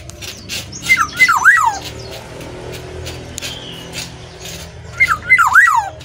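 Black-naped oriole singing: two short, fluty whistled phrases, each a few swooping notes that slide down in pitch, about a second in and again near the end.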